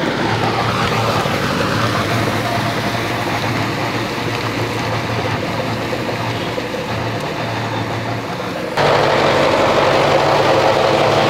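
Kubota MU5501 tractor's four-cylinder diesel engine running steadily under load while its rotavator churns a flooded paddy field. About nine seconds in the sound cuts abruptly to a louder, slightly higher engine note.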